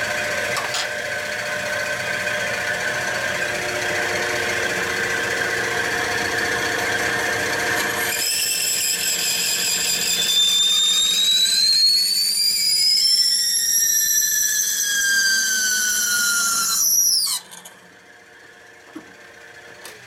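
Drill press spinning a reamer through a bolt hole in a Harley 45ci flathead cylinder head, on a press whose lowest speed is faster than reaming wants. It runs with a steady hum at first; about eight seconds in, the reamer starts to squeal in high tones that glide up and down in pitch. The squeal cuts off abruptly near the end.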